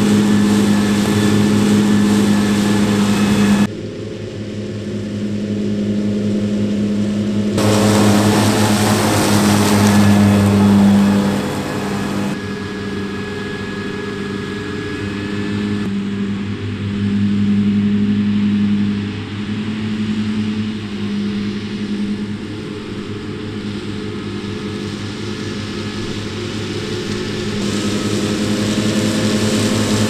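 Krone BiG M 420 self-propelled mower's engine running steadily under load while mowing grass, a deep even drone. Its tone and level shift abruptly a few times.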